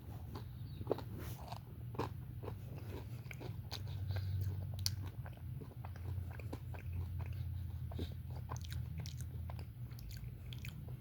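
A person chewing and biting into a bacon, egg and cheese sandwich close to the microphone, with irregular small crunches and mouth clicks. A steady low hum runs underneath.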